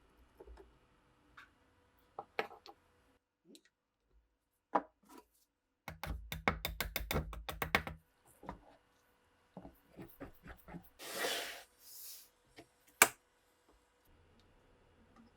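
Clicks and knocks of old pistol parts being handled and worked by hand. A quick run of a dozen or so taps comes about six seconds in, a short hiss about eleven seconds in, and a single sharp knock, the loudest sound, near thirteen seconds.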